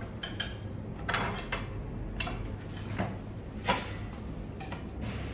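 Scattered knocks and clicks of chair parts being handled and fitted while a leg is attached during Adirondack chair assembly, the sharpest knock a little before four seconds in.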